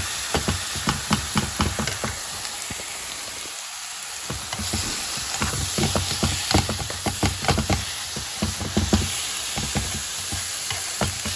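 Ground turkey sizzling in a frying pan while a spoon stirs and breaks it up, knocking and scraping against the pan. The stirring pauses briefly about three seconds in, then carries on.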